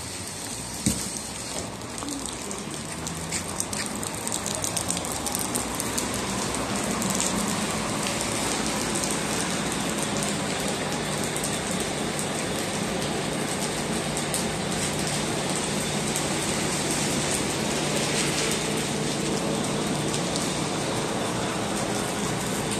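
Steady rain falling and dripping on the pavement and the bus terminal's canopy, with one sharp knock about a second in. From about a third of the way in, a parked bus's diesel engine idles steadily underneath.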